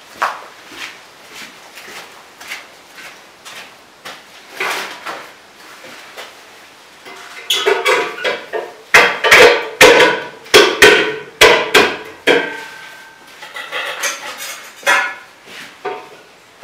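A series of sharp knocks and clanks, some with a short ringing tone, sparse at first and then coming thick and fast from about halfway in.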